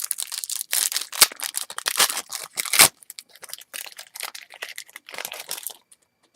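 Baseball card pack wrapper crinkling and tearing as the pack is opened and handled, a dense run of scratchy rustles that stops abruptly near the end.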